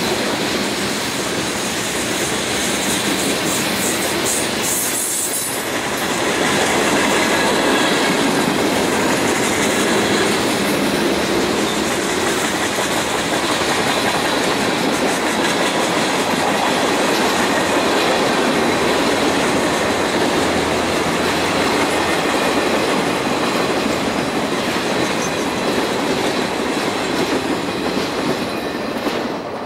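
Freight train's cars rolling past: steady rumble and clickety-clack of steel wheels on the rail joints, with brighter high clatter a few seconds in. The sound starts to fade at the very end as the last car goes by.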